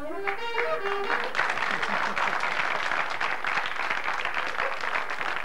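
Studio audience applauding, beginning about a second in after a brief voiced sound.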